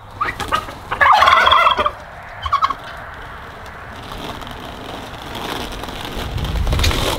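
Domestic tom turkey gobbling: one loud rattling gobble about a second in, with a few shorter calls just before and after it. A low rumble rises near the end.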